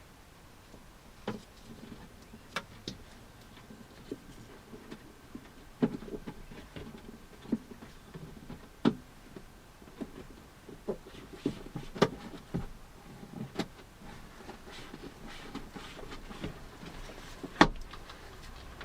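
Irregular clicks and knocks of parts and tools being handled while refitting a Land Rover Discovery 2's rear door trim after a lock change. One sharper knock comes near the end.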